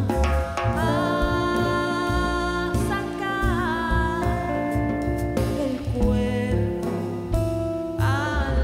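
Band music with drums and bass under sustained melodic lines.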